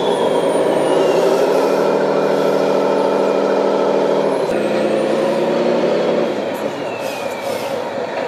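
Radio-controlled model trucks running under load: the drive motors and gearboxes of the stuck Mercedes SK tipper and the wheel loader pushing it hum steadily. A faint high whine falls in pitch twice, and the hum changes about halfway through.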